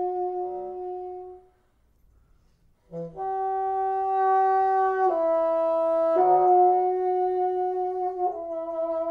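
Solo bassoon playing long held tones. The first fades out about a second and a half in. After a short pause a new held tone enters and shifts pitch three times, stepping down, up and down again.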